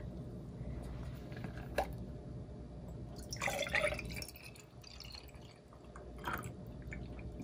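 Orange juice poured from a plastic jug into a glass jar, the pour loudest about three and a half seconds in, with a few light clicks around it.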